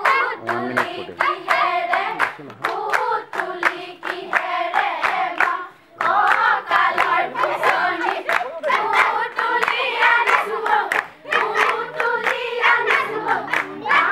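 A group of women singing a Jiyari Bihu song together in unison, keeping time with rhythmic hand claps. The singing breaks off briefly twice, about six and eleven seconds in.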